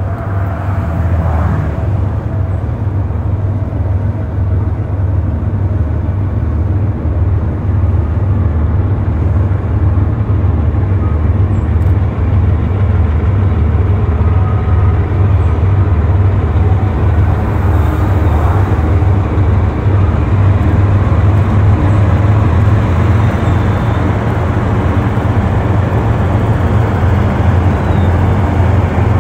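Steady low diesel rumble of GE B23-7 locomotives hauling a freight train, with the noise of the cars rolling on the rails. It grows a little louder over the first several seconds, then holds.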